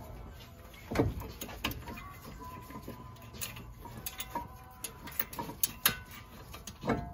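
Light metallic clicks and clinks as a brake caliper bracket bolt is backed out from behind the rotor, with a louder knock about a second in and another near the end.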